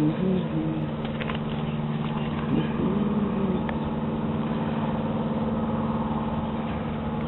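A steady low motor hum, like an idling engine, with two brief low wavering sounds, one at the start and one about two and a half seconds in.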